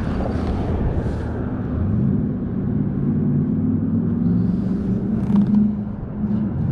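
An engine running steadily, its pitch rising about two seconds in and then holding.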